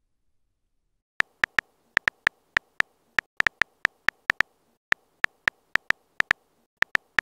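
Simulated smartphone keyboard typing clicks from a texting app: short, sharp ticks at an irregular pace as a message is typed letter by letter, starting about a second in.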